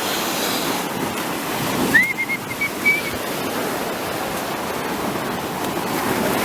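Sea surf washing on the shore as a steady rushing noise, with wind on the microphone. About two seconds in, a brief high chirping call gives a few short pips.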